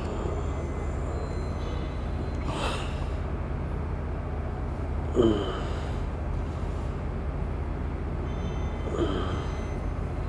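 A man on the treatment mat makes three short vocal sounds, falling in pitch, about two and a half, five and nine seconds in, as a steel blade is scraped over his back. A steady low hum runs under it.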